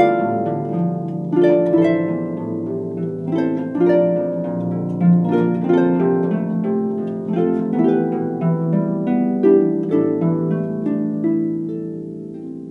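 Background music of gently plucked string notes in a flowing melody, growing quieter near the end.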